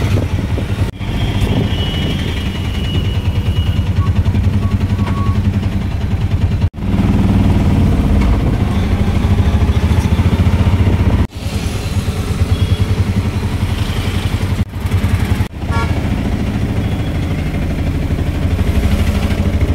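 Auto-rickshaw engine running as the three-wheeler drives through town traffic, a steady low pulsing rumble heard from inside the open cab, louder for a few seconds in the middle. The sound breaks off for an instant four or five times.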